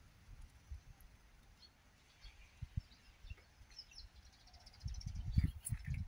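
Faint songbird chirps scattered through, with a quick high trill about two-thirds of the way in. Low rumbling bumps on the microphone, strongest near the end.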